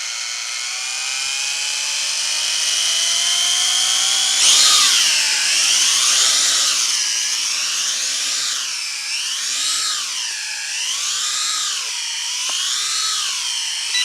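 Quadcopter motors and propellers whining, rising steadily in pitch for about four seconds as the auto takeoff spins them up, then jumping higher as it lifts off. After that the whine swells and dips in pitch about once a second as the drone holds its hover in altitude hold.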